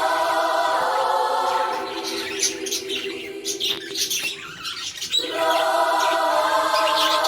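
Budgerigars chirping and twittering over background music that holds a steady choir-like chord. The chord fades out for a few seconds in the middle, leaving the budgie chirps more exposed, then comes back.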